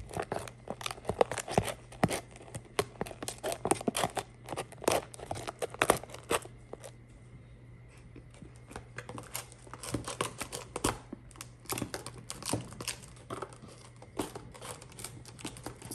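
Sticky shaving-cream-and-glue slime being stirred in a mixing bowl just after the contact-solution activator went in, making irregular wet clicks and crackles. The stirring goes quieter for a couple of seconds about halfway, then picks up again.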